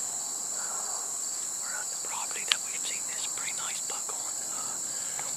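Steady, high-pitched chorus of crickets, with a single sharp click about halfway through.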